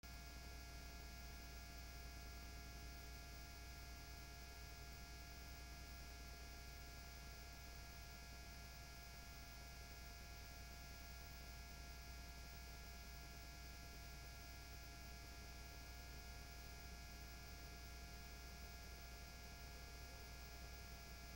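Faint, steady low electrical hum with light hiss on an otherwise silent audio track.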